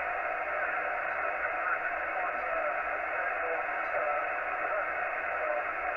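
Yaesu FT-847 transceiver receiving on 7.272 MHz in the 40-metre amateur band: a steady hiss of band noise and static from its speaker, cut off above the narrow voice passband, with faint traces of an unintelligible voice under the noise.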